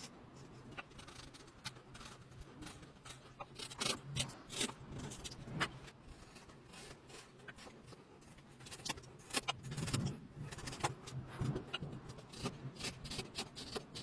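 Irregular sharp clicks and light knocks with some faint scraping, from hands working wooden pieces, with a low steady hum underneath.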